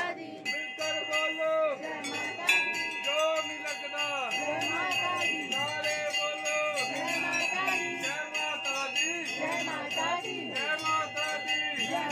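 Temple bells struck over and over, several strokes a second, their ringing overlapping into a continuous clang, with a crowd's voices beneath.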